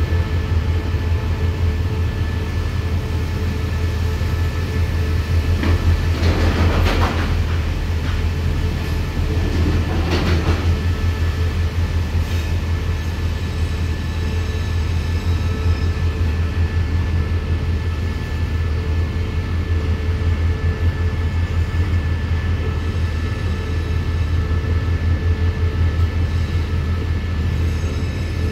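Container freight train's wagons rolling past with a steady low rumble. Two short, louder rushes of noise come about six and ten seconds in.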